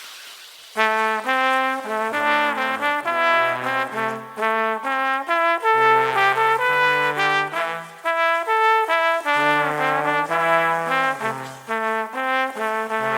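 Recorded brass section of trumpets and trombones playing a chordal melody, with no drum beat under it, starting about a second in after a fading tail.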